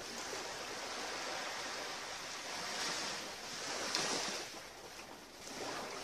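Small sea waves lapping on the shore, a steady wash that swells a little about three and four seconds in.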